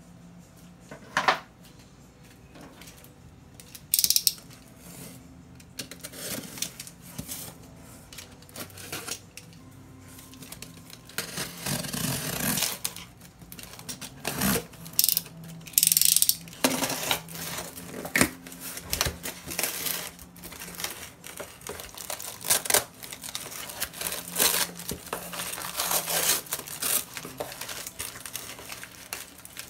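Cardboard shipping box being opened by hand: a utility knife slitting the packing tape in scraping strokes, the cardboard flaps handled, then crinkly paper packing rustled and pulled out of the box. Two sharp knocks come in the first few seconds, and short clicks run through the handling.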